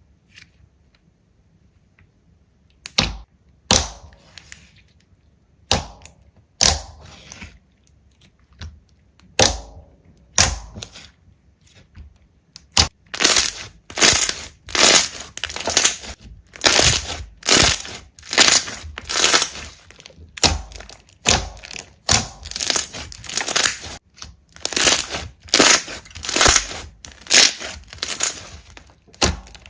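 Slime being squeezed and pressed by hand, giving sharp crackling, crunchy pops: a few at first, then from about halfway a steady run of them, roughly one or two a second.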